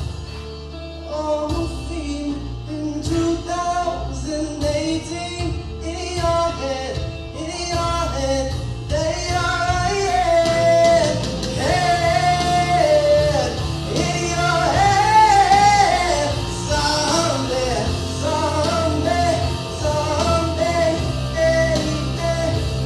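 A solo singer performing a rock song over a guitar-and-drums rock accompaniment, with long held, bending sung notes through the middle.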